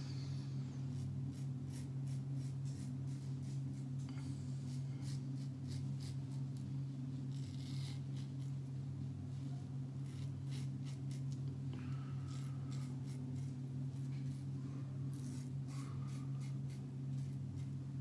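Edwin Jagger double-edge safety razor with a King C. Gillette blade scraping through lathered stubble in many short strokes against the grain, where the blade tugs a little. A steady low hum runs underneath.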